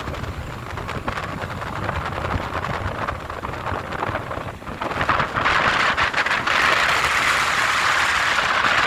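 Strong wind buffeting the microphone in gusts, with a rushing hiss that swells about halfway through.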